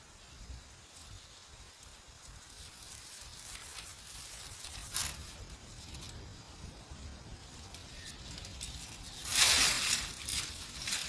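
Rustling and scraping noises over a low rumble, with a short burst about halfway through and a louder, longer rustle near the end.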